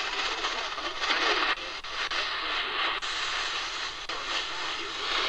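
Static and hiss from the QFX R-35 pocket radio's small speaker while it is tuned across the AM band near 880 kHz, between stations or on a weak signal. The tuning is touchy and hard to hold on a station.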